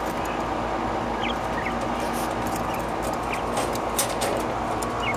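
A few short, high chirps from quail in a cage, over a steady mechanical hum.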